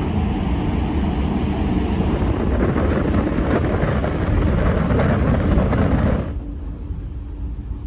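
Wind on the microphone and the low rumble of a passenger ferry under way, with the rush of its wake alongside: a loud, steady noise that cuts off abruptly about six seconds in, giving way to a quieter low hum.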